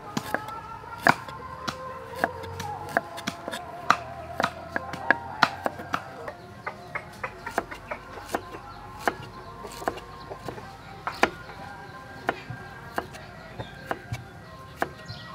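Cleaver chopping fresh ginger on a wooden cutting board: sharp, irregular knocks, about two a second, over background music.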